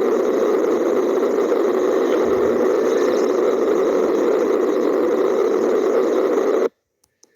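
Arno electric fan running with a steady whir, cutting off abruptly near the end.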